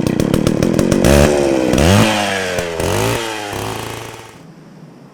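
Small petrol engine running and being revved up and down about three times, then fading out about four seconds in.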